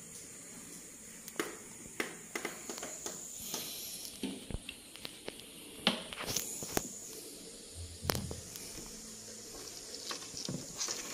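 Hermit crab's legs and shell tapping and scraping on a wooden surface: irregular light clicks and taps, a few sharper ones, over a steady high-pitched hiss.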